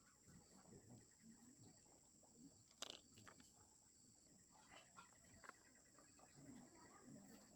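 Near silence: a faint steady high-pitched tone, with a few faint clicks and light handling noises, the sharpest about three seconds in.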